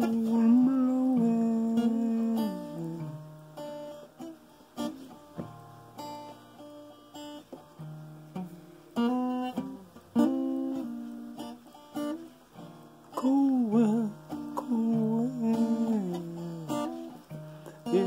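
Acoustic guitar being picked and strummed, its notes changing chord by chord. A man's wordless singing slides and wavers over it at the start and again past the middle.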